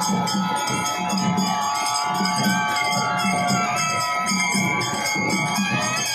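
A marching folk band plays: a drum beats a steady rhythm under jangling metal percussion, while wind instruments hold long notes.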